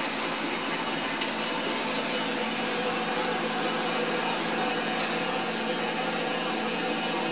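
A steady whirring, rushing noise of a small machine running, with a few faint light clicks.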